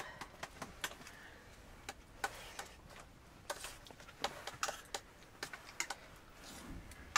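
Wood fire crackling: scattered sharp pops and ticks, irregular, a few each second.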